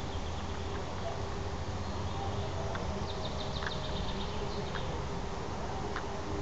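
Outdoor summer ambience: a steady low rumble and a steady hum, with a bird's fast trill of short high notes for about two seconds from three seconds in, and a few scattered short chirps.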